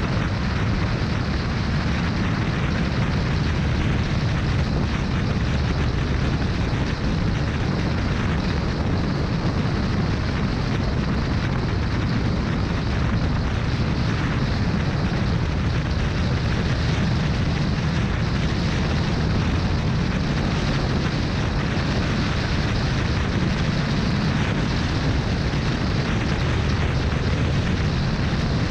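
Steady wind rush buffeting an action camera's microphone on a moving motorcycle at road speed, with a deep rumble of engine and road noise under it.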